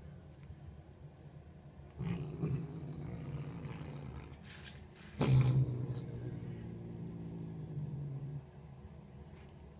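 Domestic tabby cat growling low: one long growl about two seconds in and a second, louder one starting about five seconds in and lasting about three seconds.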